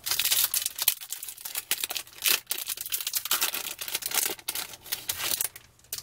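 Foil trading-card pack wrapper being torn open and crinkled in the hands: a dense run of crackling and rustling that dies away shortly before the end.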